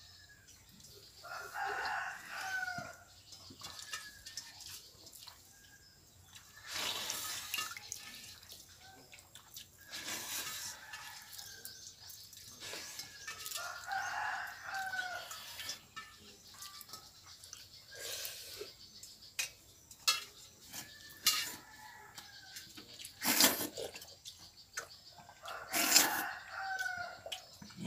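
A rooster crows three times, about twelve seconds apart, each crow lasting about a second and a half. Short knocks and clicks come in between, the loudest near the end.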